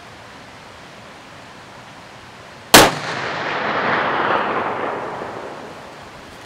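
A single shot from a break-action smokeless-powder muzzleloading rifle, set off by a large rifle magnum primer in a direct-ignition breech plug, about three seconds in; the charge ignites cleanly. A long echo follows, building and then fading over about three seconds.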